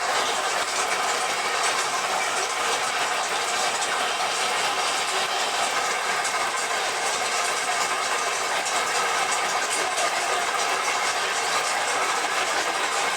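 Steady, unbroken mechanical noise of a running machine, even in level throughout.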